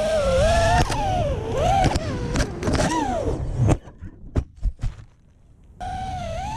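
FPV quadcopter's electric motors and propellers whining, the pitch rising and falling with the throttle. A bit past halfway the whine drops away to a few short blips and near silence, then returns as a steady whine near the end.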